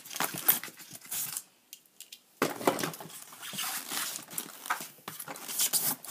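Hands rummaging through a foam packing tray: plastic accessories and packaging rustling, clicking and clattering. A short lull comes about two seconds in before the handling picks up again.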